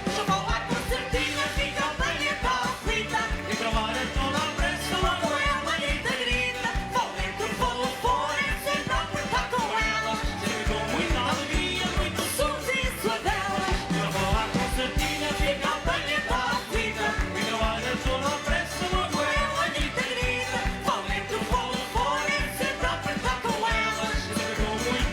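A Portuguese concertina group playing and singing a folk song: button accordions carry the tune under voices, over a steady beat.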